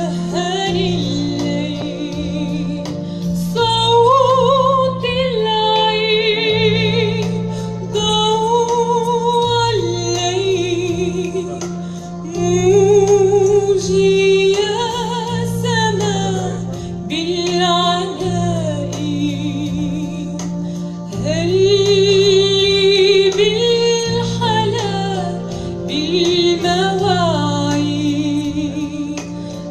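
Solo female voice singing a slow Arabic hymn with marked vibrato, in long phrases with short breaths between them, over steady sustained electronic keyboard chords.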